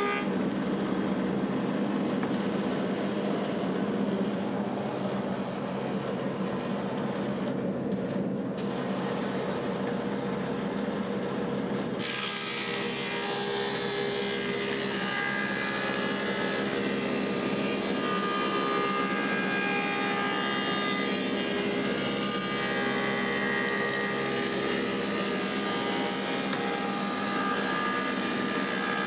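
Woodmaster thickness planer with a helical cutterhead running steadily under load. About twelve seconds in, an Osage orange board enters the cutterhead and the sound turns harsher and hissier as it is planed.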